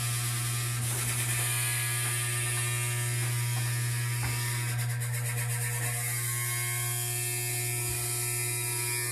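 Electrolux LSE09 washer-dryer giving off a loud, steady buzzing hum with a hiss as it fills with water. This is a factory fault that the owner calls an unbearable, deafening noise.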